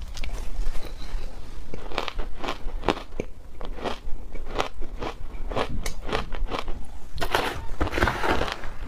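Shaved ice dusted with matcha and milk powder crunching between the teeth as big mouthfuls are bitten and chewed. The crisp crunches come about two a second and turn denser and louder near the end.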